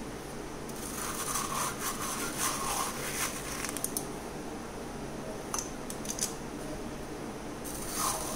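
Metal squeeze-handle ice cream scoop scraping through hard-frozen mango ice cream in an aluminium foil tray, in several short scratchy strokes, then a few sharp clicks of the scoop against the tray.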